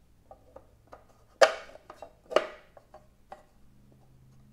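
Bent sheet-aluminium plate being handled and fitted onto a single-DIN storage tray: a series of light clicks and taps, with two sharper knocks about one and a half and two and a half seconds in.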